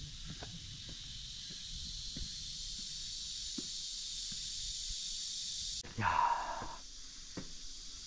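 Steady high-pitched chorus of cicadas in the summer woods, which cuts off suddenly about six seconds in, with scattered footsteps underneath. Just after the cut comes a short, louder heavy breath.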